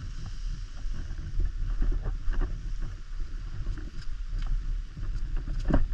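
Wind rumbling and buffeting on the microphone by the sea, with scattered small knocks and a louder knock near the end.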